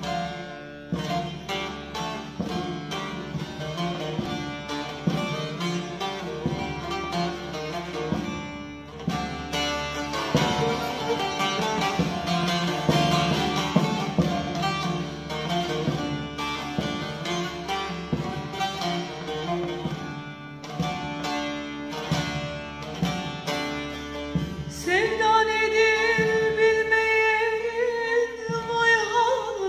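Bağlama (long-necked Turkish saz) played with quick, dense picking as a song introduction. About 25 seconds in, a woman's voice starts singing over it.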